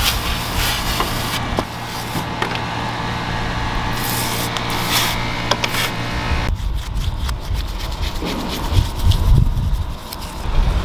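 A pump sprayer's wand hissing in short bursts as it sprays foaming cleaner onto a car seat's metal rails, then a detailing brush scrubbing the wet rails.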